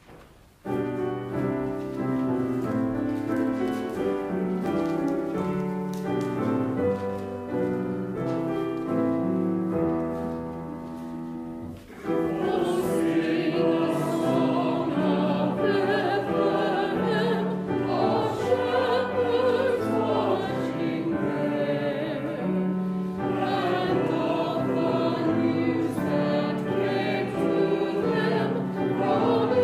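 A keyboard plays a hymn introduction of steady chords. About twelve seconds in, a congregation joins in singing the hymn to the keyboard accompaniment.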